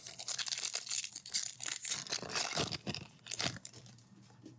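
A baseball card pack's foil wrapper being torn open and crinkled in the hands: dense crackling that thins out about three and a half seconds in.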